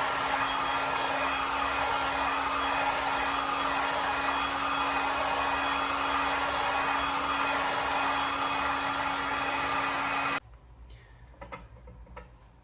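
Handheld hot-air dryer blowing steadily with a constant hum, drying a freshly painted base coat on a laminate worktop repair. It switches off abruptly about ten seconds in, leaving only faint small handling sounds.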